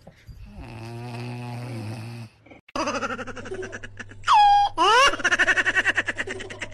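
Orange tabby cat yowling loudly, with calls that sweep sharply down and then up in pitch and break into a rapid, pulsing rattle. A quieter, steady, low-pitched sound comes before the yowling.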